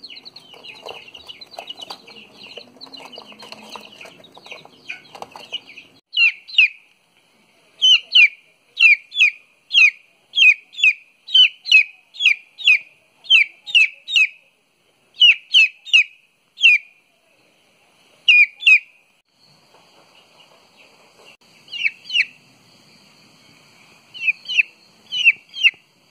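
Domestic chicks peeping: at first a group chirping over each other with some rustling, then from about six seconds in a single chick's loud, repeated peeps, each falling in pitch, about two a second, with a short pause before they resume near the end.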